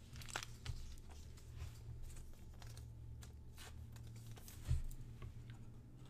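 Trading card being handled into a soft plastic penny sleeve and a rigid plastic toploader: scattered light clicks and rustles of plastic, with one soft thump about three-quarters of the way through, over a steady low hum.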